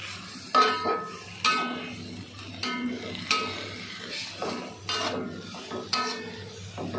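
Metal spatula clanking and scraping against a metal wok while chicken and sweet mustard greens are stir-fried. It gives a sharp, ringing clank roughly once a second.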